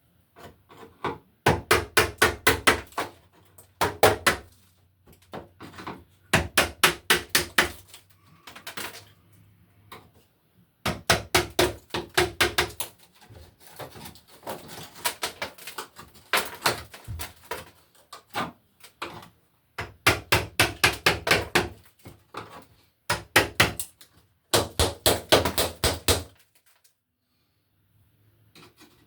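Rapid hammer blows in short bursts, about five strikes a second, with pauses between bursts, knocking at a rusted electrical receptacle box to break it loose from the wall.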